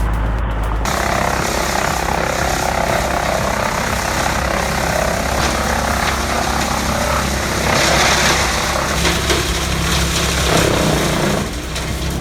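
Heavy diesel machinery running steadily under load, a continuous engine drone with a noisy mechanical wash over it.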